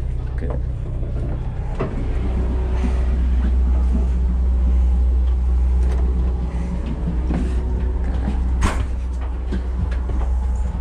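Steady low rumble of a moving passenger railcar heard from inside, swelling in the middle while passing through the end door into the next car, with a few knocks and one sharp clack near the end.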